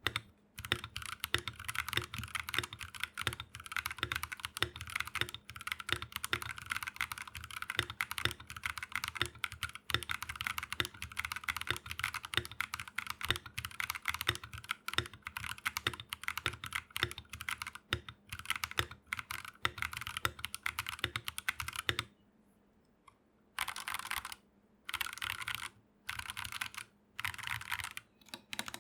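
Typing on an Akko 3068B+ mechanical keyboard with tactile Akko CS Jelly Purple switches lubed with Krytox 205G0, in a board with case foam, tape mod and PE foam mod. Fast continuous typing stops about 22 seconds in, followed by a series of short, rapid bursts of keystrokes, each about a second long.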